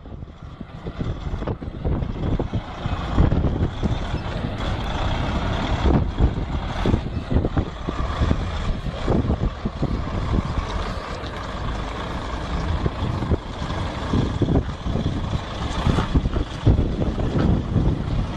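DAF CF articulated lorry's diesel engine running as the rig manoeuvres slowly at low speed.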